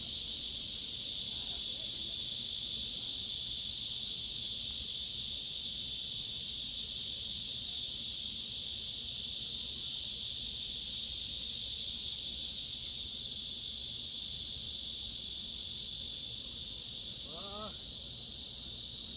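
Cicadas buzzing in a steady, continuous high-pitched drone with no rhythm or breaks. A few faint chirps sound briefly near the end.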